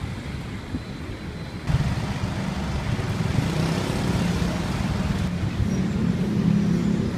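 Busy city road traffic: car, bus and motorbike engines running with tyre noise and a low engine hum. It starts suddenly, louder, about two seconds in after a quieter stretch, and the hum swells near the end.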